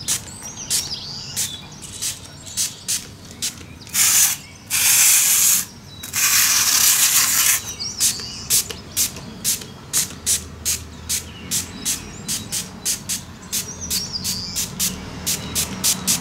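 Aerosol can of diorama spray glue hissing in three bursts, the last and longest about a second and a half, as it is sprayed onto model trees. A quick steady ticking, about two to three clicks a second, runs under it.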